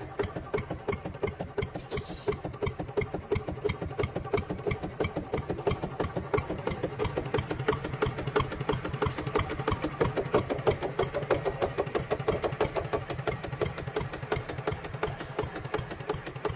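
Small engine running steadily at a fast idle, an even putt-putt of about ten beats a second.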